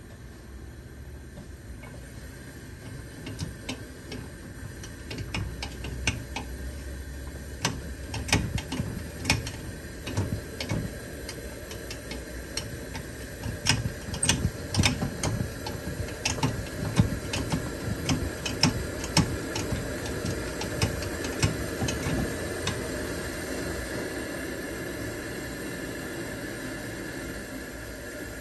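Vintage Preway P4521 camp stove's pressurized liquid-fuel burner just lit and warming up: the flame sputters with many irregular pops and clicks, then settles after about twenty seconds into a steady rushing burn.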